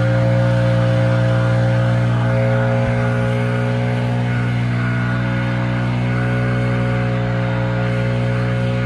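Engine running at a steady speed, a low even drone with no revving or change in pitch.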